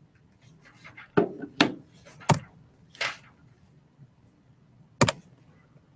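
Handling noise at a desk: five short knocks and clicks, the loudest about five seconds in.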